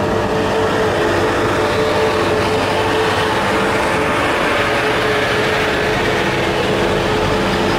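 Diesel engines of heavy trucks climbing a steep grade in slow traffic, a loud, steady drone with a held tone throughout.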